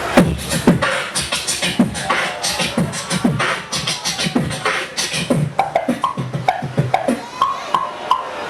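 A man beatboxing: a quick, steady rhythm of deep mouth kick-drum thumps and sharp snare and hi-hat clicks, with short pitched vocal tones near the end.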